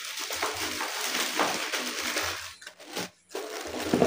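Plastic bags crinkling and rustling as bagged wiring harnesses and cables are handled and lifted out of a cardboard box, with a short break about three seconds in.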